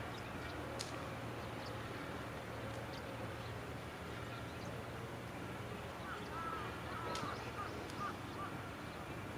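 Quiet background hum with a few faint clicks, and a short run of bird calls about six to eight seconds in.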